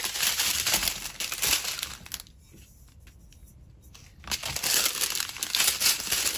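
Small plastic bags of diamond-painting drills crinkling as they are handled and sorted. There are two spells of crinkling with a quieter pause of about two seconds in the middle.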